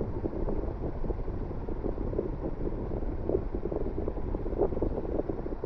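Casablanca Four Seasons ceiling fan running flat out on high, its moving air buffeting the microphone with a loud, gusting wind rush. The rush drops off suddenly at the very end.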